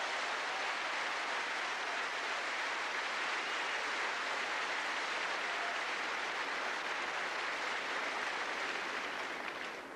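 Large arena crowd applauding a women's vault, a steady even clapping that dies down near the end.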